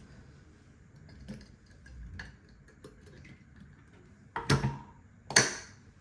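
Light clicks and taps of objects being handled, then two louder knocks about a second apart near the end.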